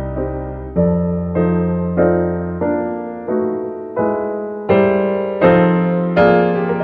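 Background piano music: chords struck about every two-thirds of a second, each fading away over low held bass notes, growing louder and brighter near the end.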